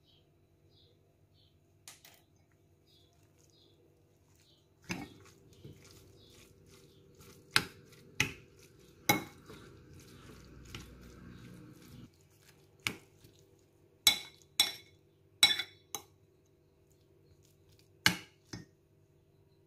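A metal spoon stirring chopped greens, onion and spices in a glass bowl, clinking sharply against the glass about a dozen times. A soft wet rustle of the mixed stuffing runs between about five and twelve seconds in.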